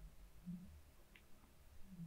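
Near silence: room tone, with only a faint low murmur or two.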